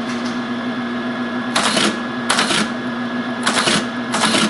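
Teletype ASR33 with its motor humming steadily while four characters are typed and printed one at a time. Each is a short mechanical burst from the keyboard and print mechanism, the first about a second and a half in.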